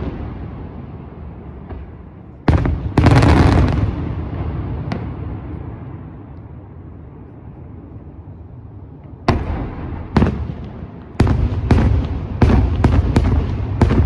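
Daytime fireworks display: two loud bangs about two and a half seconds in, fading away in a long rumbling echo, then from about nine seconds a quickening string of sharp bangs, two or three a second near the end.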